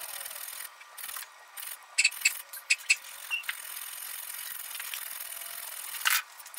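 Small hand file rasping across the edge of a brass piece clamped in a vise, cutting decorative notches. A run of short, sharp strokes comes about two to three seconds in, and one louder stroke near the end.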